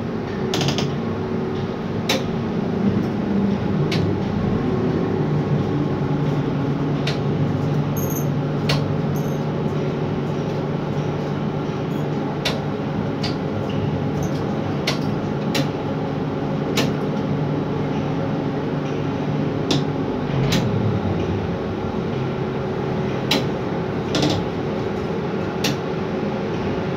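Overhead hot metal crane's drives running, heard from inside the operator's cabin: a steady machine hum that drops in pitch about four seconds in and winds down about twenty seconds in, with scattered sharp clicks.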